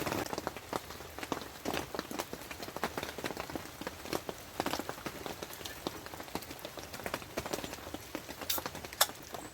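Steady rain falling, with many separate drops striking close by at irregular moments.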